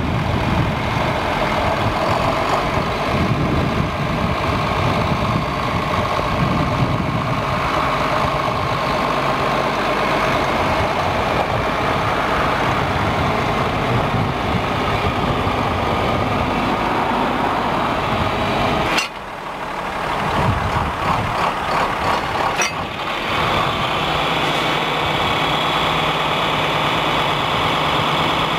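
John Deere 4440's turbocharged six-cylinder diesel engine running steadily as the tractor moves. The sound breaks off briefly twice about two-thirds of the way through, then settles to a steadier, even hum near the end.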